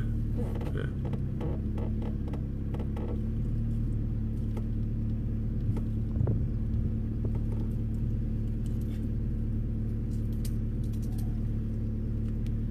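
A vehicle engine idling with a steady low hum. A series of light knocks comes in the first few seconds, and a few more near the end.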